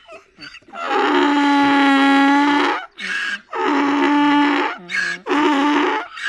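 A donkey crying in long, drawn-out wailing calls. The first is held steady for about two seconds, a second follows, then shorter calls with lower notes between them near the end.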